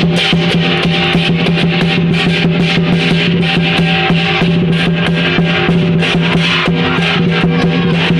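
Lion dance percussion: a drum beaten in a fast, dense rhythm with clashing cymbals, over a steady low sustained tone.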